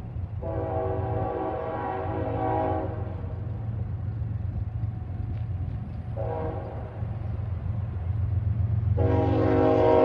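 A Nathan K5HL multi-chime locomotive air horn sounds a long blast, then a short one, then another long blast starting near the end. Underneath is the steady low rumble of the approaching Union Pacific GE AC45CCTE diesel locomotives, growing louder.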